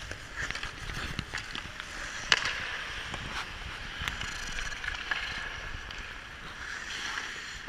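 Hockey skate blades gliding and scraping across rink ice, with sharp clacks of sticks on the puck and the ice; the loudest crack comes a little over two seconds in.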